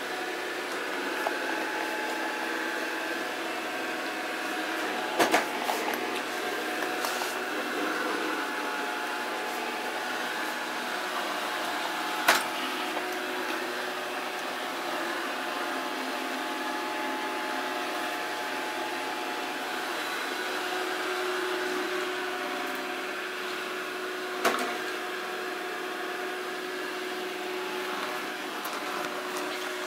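Samsung SR8751 robot vacuum running steadily, its motor and brushes giving a hum with several steady tones. A few sharp knocks cut in, about five, twelve and twenty-four seconds in.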